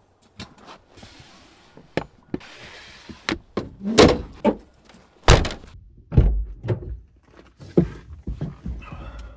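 SUV camper being packed up: wooden slide-out drawers and gear knocking and sliding into place, then the rear tailgate slammed shut about five seconds in, followed by another heavy car-door thud and a few lighter knocks.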